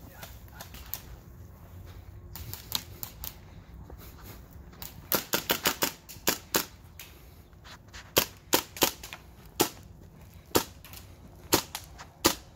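Airsoft rifles firing: sharp snapping shots, mostly single shots about a second apart, with a quick string of about six shots about five seconds in.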